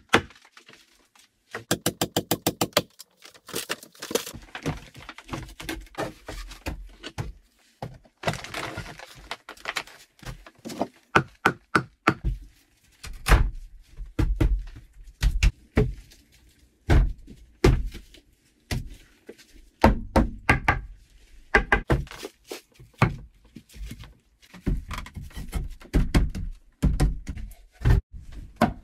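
Repeated wooden knocks and thunks as split wooden boards and logs are handled and set against the dugout's plank walls and floor, with a quick run of knocks about two seconds in.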